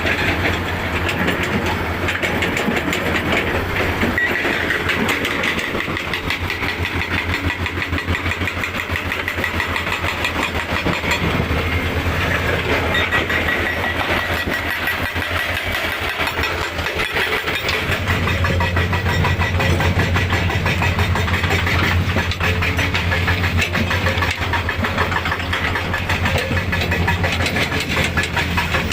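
Heavy diesel engine running steadily, a low drone with a fast firing rhythm and a faint whine above it. The drone weakens in the middle and grows stronger again about two-thirds of the way through.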